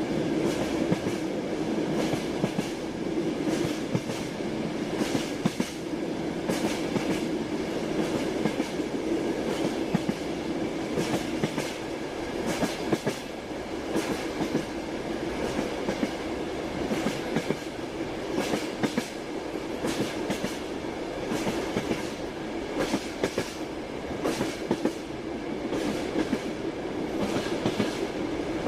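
Toy railway train running along its track: wheels clicking over the rail joints in a steady clickety-clack, over a continuous hum.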